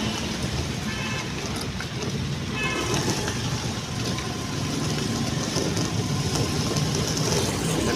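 Steady low rumble of road traffic, with two faint short high tones about one and three seconds in.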